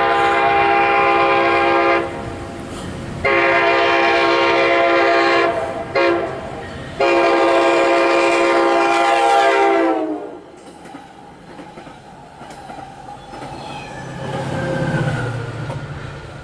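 MARC commuter train's horn sounding a multi-note chord in a long, long, short, long pattern, the grade-crossing signal. The last blast drops in pitch as the train passes, then the train's wheels run on with a quieter rumble and clatter.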